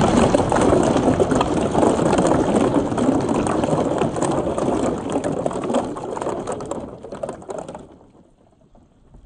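Billiard balls and marbles rolling down a perforated wooden chute, clacking against each other and splashing into a tub of water full of floating balls: a dense clatter that thins out and stops about eight seconds in.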